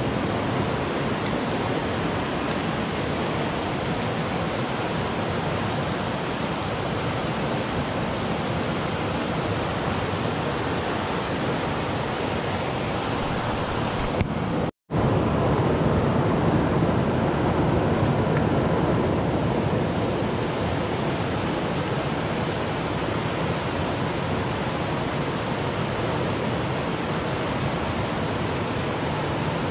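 Steady rush of river water: a constant noise that cuts out for an instant about halfway through.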